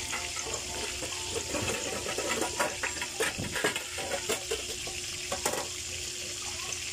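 Yellowfin tuna jaw deep-frying in hot oil in a covered pan: a steady sizzle with scattered pops and crackles, thickest in the middle seconds.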